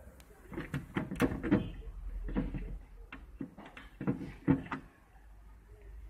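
Clear plastic door shelves of a Vestel No Frost refrigerator being handled: a series of irregular plastic knocks and clicks through the first five seconds, the loudest about four and a half seconds in.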